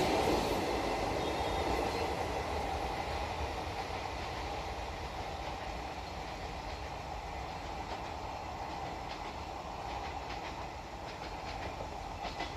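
Passenger train coaches rolling away along the track: a steady wheel-on-rail rumble with faint clatter, slowly fading as the train recedes.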